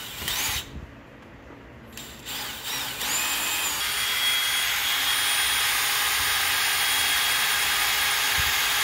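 Cordless drill/driver running on a motorcycle's crankcase bolts: two short spin-ups in the first three seconds, rising and falling in pitch, then a steady whine from about three seconds in.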